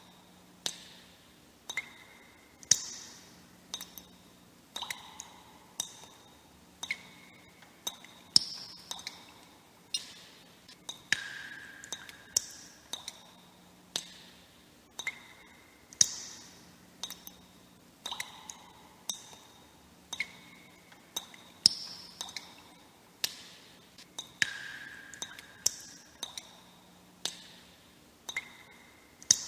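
Water droplets dripping, one plink after another, each a sharp tap with a short ringing tone at a different pitch, irregularly about once a second.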